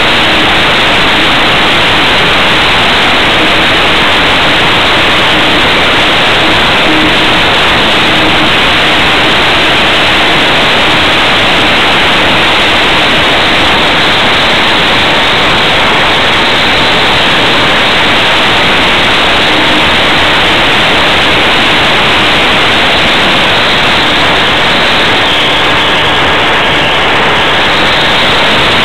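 Steady, loud rush of air and propeller noise on the small onboard camera's microphone under a model aircraft's wing in flight, with a faint steady hum from the motor beneath it.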